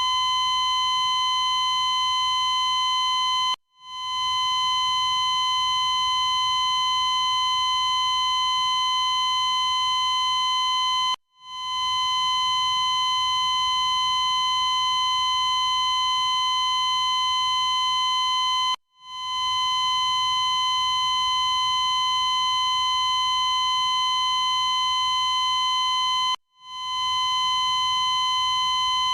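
Glitching heart monitor sounding a continuous flatline tone, a steady electronic beep that cuts out briefly four times, about every seven and a half seconds, and fades back in each time.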